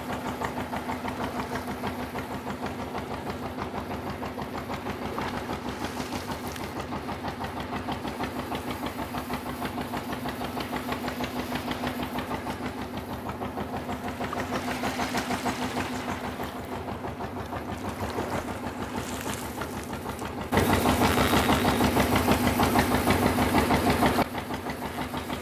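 Engine running at a steady pace with an even, rapid knocking beat. For a few seconds near the end it grows louder, with more hiss over it.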